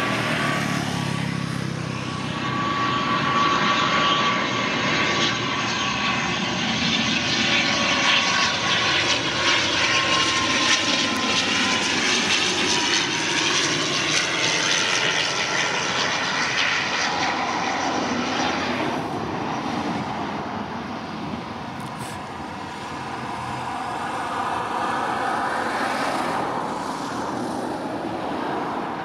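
ATR twin-turboprop airliner's engines and propellers on a low approach and landing: a steady drone with a whine that slides a little lower in pitch as the plane passes.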